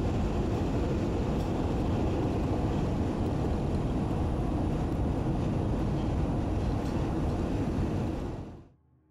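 Steady road noise heard from inside a car driving at highway speed, heaviest in the low end, fading out near the end.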